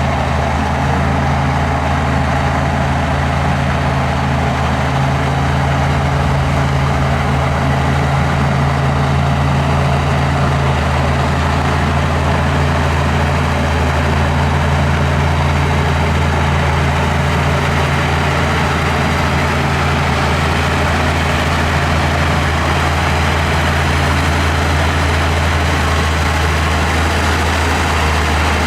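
Heavy diesel engine of earthmoving machinery running steadily under a constant load, a deep, even drone with no pauses.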